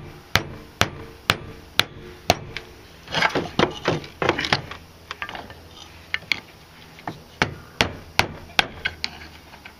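Rubber mallet striking a screwdriver whose tip is set against the edge of a rust-stuck driveshaft center support (carrier) bearing, driving it off the shaft. Sharp knocks about two a second, with a quicker run of lighter taps about three to four seconds in.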